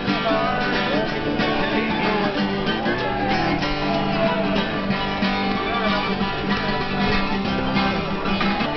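Acoustic guitar being strummed steadily, with people's voices in the background.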